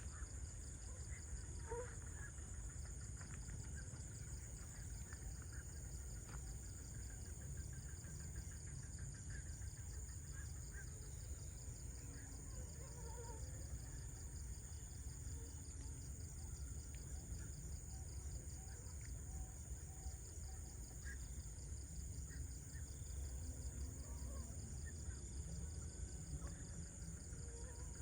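Steady high-pitched trilling of crickets, with a few short bird chirps scattered over a constant low rumble.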